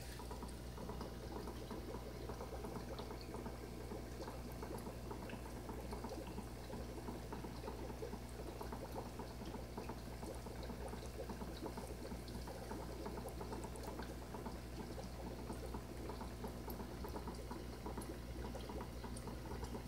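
Aquarium filter water steadily trickling and bubbling into the tank, over a low steady hum.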